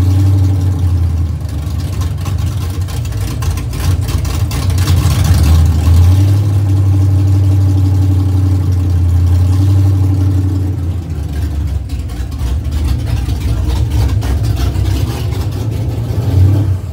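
Ford 302 V8 with a B303 cam, GT40P heads and 1.7 roller rockers running through open exhaust, idling after a cold start; the engine is untuned and its ignition timing not yet set. The level swells and eases a little as it idles, and it cuts off at the very end.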